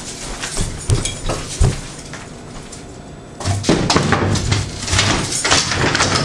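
A few single knocks, then from about three and a half seconds in a louder run of bumps and clatter as a canvas is knocked off its wooden easel and things are knocked over.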